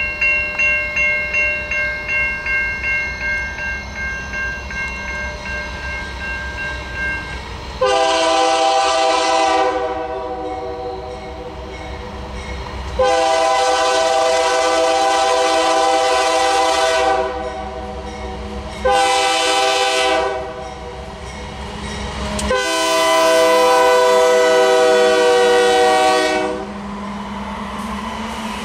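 Grade-crossing warning bell ringing about three times a second and fading, then a diesel locomotive's horn sounding the crossing signal: two long blasts, a short one and a final long one. After the last blast comes the low rumble of the train reaching the crossing.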